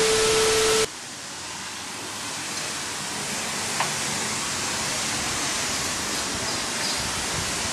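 A TV-static transition effect: loud hiss with a steady test-tone beep for about a second, cutting off sharply. Then a steady outdoor hiss of balcony ambience.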